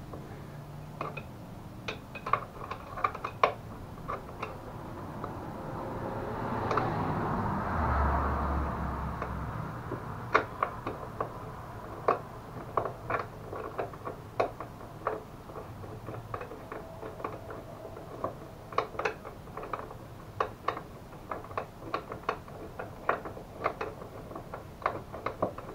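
Irregular sharp metallic clicks and taps of hand tools and bolt hardware being worked while fitting a mobility scooter's front bumper to its frame, with a rustling swell and a low thud about eight seconds in.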